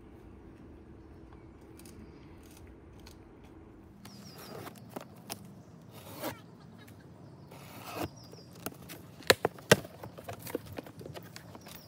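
A few seconds of quiet outdoor background, then a knife slitting packing tape on a cardboard box and the cardboard flaps being pulled open: scraping, tearing and rustling strokes, with two sharp snaps in quick succession a little after the middle.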